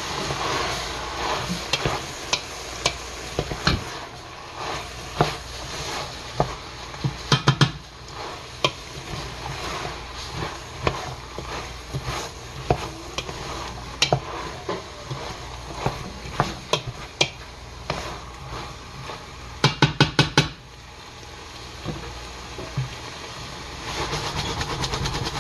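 Wooden spoon stirring chopped vegetables and browned beef in a stainless steel stockpot, scraping and knocking against the pot over a steady sizzle. A quick cluster of knocks comes about seven seconds in and a fast run of about six knocks about twenty seconds in.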